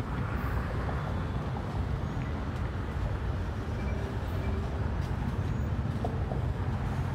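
Freight train of enclosed autorack cars rolling past below, a steady low rumble.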